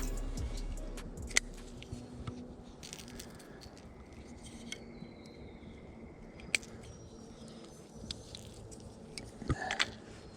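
Fishing tackle handled during a lure change: scattered small clicks and light rustling, with a louder cluster of clicks near the end.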